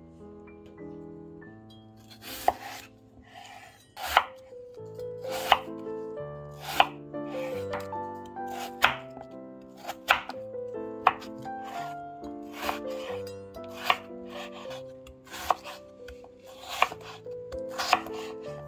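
Kitchen knife chopping peeled raw potato on a bamboo cutting board. About a dozen sharp knocks of the blade on the board come roughly every second and a half, starting about two seconds in, over background music.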